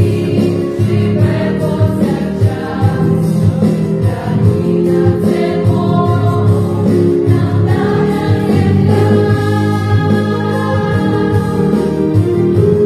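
A girls' vocal ensemble singing together, holding long notes.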